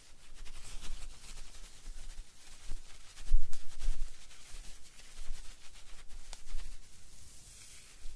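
Textured exfoliating gloves rubbing and brushing over the microphones: a scratchy, rustling texture with soft low thumps where the gloves touch the mics, loudest about three and a half seconds in.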